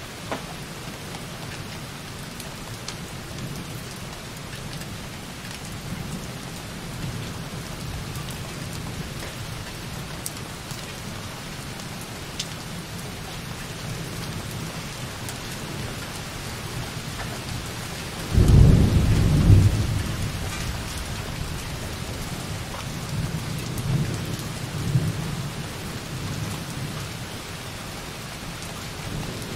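Light rain falling softly on a window in a steady hiss, with distant thunder rumbling low underneath. About eighteen seconds in, a louder peal of thunder lasts a couple of seconds, then dies away in smaller rumbles.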